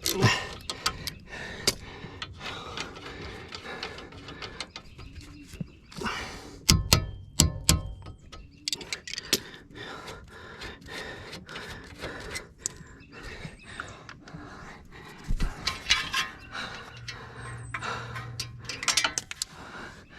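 Hand tools and metal parts clicking, knocking and clanking during work on a car's wheel and brakes, with a few loud metallic clanks that ring briefly about seven seconds in.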